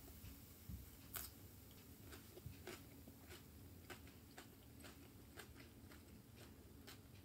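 Faint chewing on a fried beef jeon roll: soft, irregular crunchy clicks about once or twice a second over a low room hiss.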